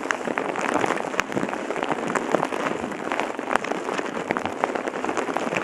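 Steady rain falling on a surface, an even hiss dotted with many small, sharp drop taps.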